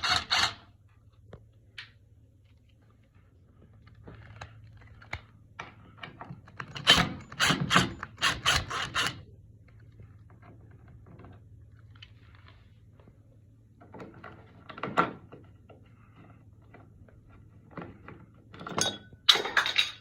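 Metal door hinge and screws being worked loose and handled, giving a few short clusters of sharp clicks and knocks. The longest run comes about seven seconds in.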